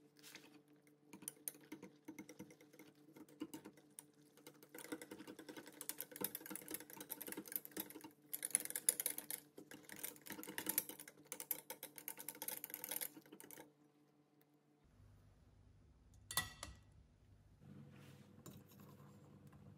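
Wire balloon whisk beating a wet date-and-oil mixture in a glass bowl: a fast, uneven run of clicks and scrapes against the glass that stops about 13 seconds in. Near the end, a brief rush as flour is tipped into a metal sieve.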